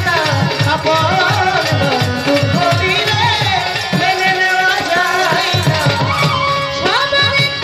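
A Bengali folk song performed live: a melody over a steady, quick drum beat.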